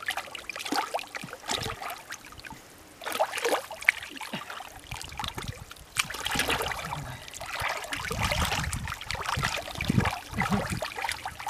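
Shallow muddy water sloshing and splashing irregularly as a person wades and gropes through it with his hands, with a low rumble a little past the middle.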